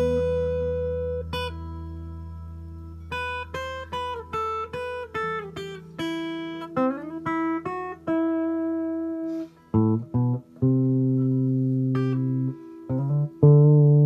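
Electric guitar played dry, with the reverb switched off. A chord rings out and fades, then come runs of single picked notes and a few short stabs that stop sharply with no reverb tail. It ends on held chords, the last one the loudest.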